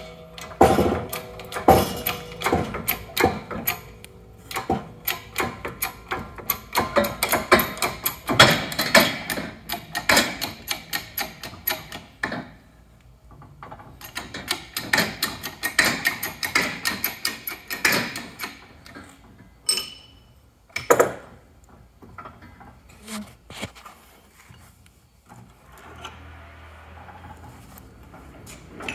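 Fast runs of metallic clicking and clanking from working a hydraulic shop press to press a bearing off a transfer case gear shaft, in two long spells, followed by a few separate sharp knocks as the parts come apart.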